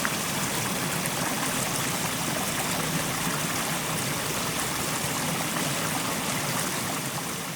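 Fast-flowing mountain stream rushing over rocks: a steady, full rush of water with fine splashing detail.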